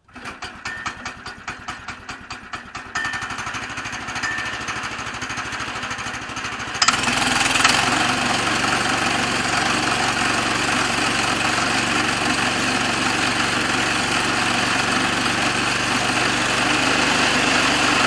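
Small gas engine of a Woodland Mills HM122 portable bandsaw mill starting and running unevenly, stepping up about three seconds in, then jumping about seven seconds in to a loud steady full-throttle run.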